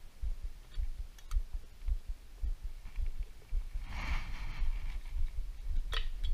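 Low, irregular thumping and rumble of hands working on a Honda CRF250 engine as the cylinder is worked off, with a few light clicks and a short scraping sound about four seconds in.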